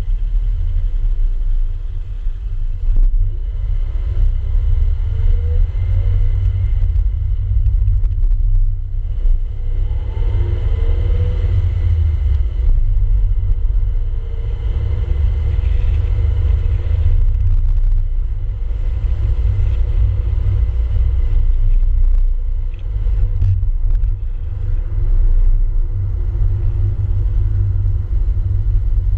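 A car driving along a road, heard as a steady low rumble of road and wind noise. A faint engine note shifts in pitch about ten seconds in.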